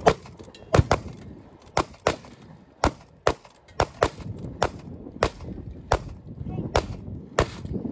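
Gunshots fired at spray paint cans: about a dozen sharp cracks, irregularly spaced at roughly one or two a second, as the cans burst into paint clouds.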